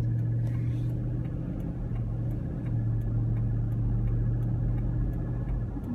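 Car driving at steady speed, heard from inside the cabin: a constant low engine and road drone with a steady hum, and faint ticks over it.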